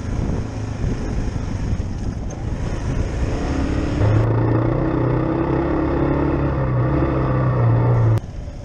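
Kawasaki KLR 650's single-cylinder engine running under way on a dirt track. The engine note steadies and gets louder about four seconds in, then drops away abruptly near the end.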